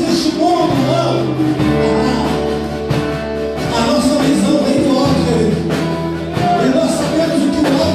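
Church worship music: a singing voice over held bass notes, guitar and regular drum hits.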